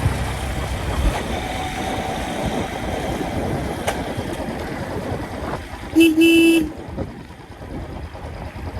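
Royal Enfield Classic 350's single-cylinder engine running on the move with road and wind noise. A vehicle horn gives one loud blast of about half a second, about six seconds in.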